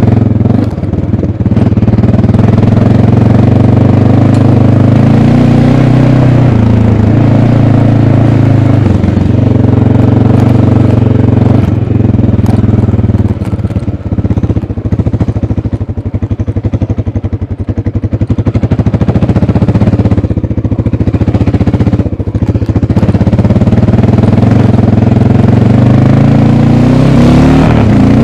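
1988 Honda NX650 Dominator's single-cylinder four-stroke engine running through its stock exhaust under way, its pitch shifting with throttle and gears. About halfway through the revs drop and the separate firing pulses can be heard, then it picks up again and rises toward the end.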